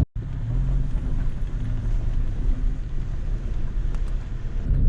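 Toyota Tacoma pickup truck driving off-road: a steady low rumble of engine and tyres.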